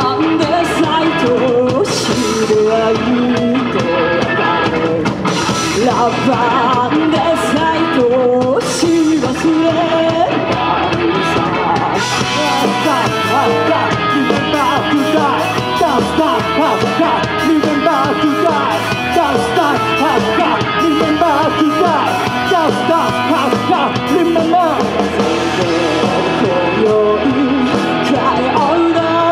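Live rock band playing loudly, with a singer and a drum kit.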